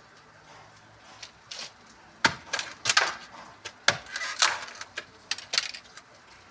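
Firewood being handled: a dozen or so irregular sharp wooden knocks and clacks as sticks are knocked together, starting about a second in.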